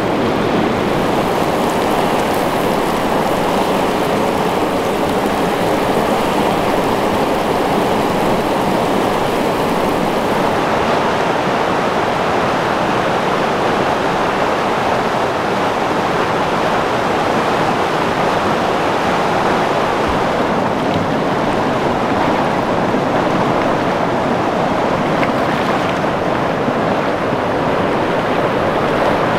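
Steady, loud rush of running water.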